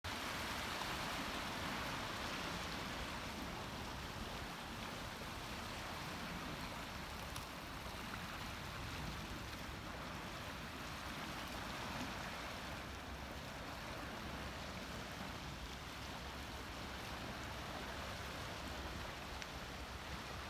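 Small waves washing and splashing against shoreline rocks: a steady rush of water with gentle swells.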